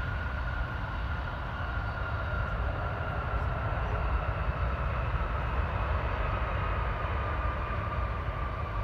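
Boeing 777-200ER jet engines after touchdown: a steady low rumble with a high whine that slowly drops in pitch as the airliner slows on the runway.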